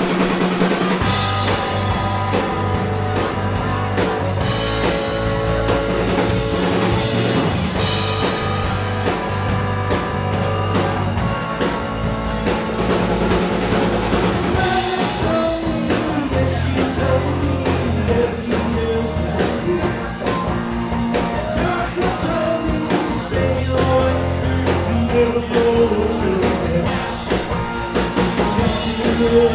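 Live rock band playing: electric guitar, bass guitar and drum kit, with a lead singer on vocals.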